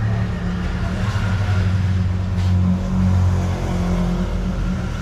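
Steady low rumble of a vehicle engine.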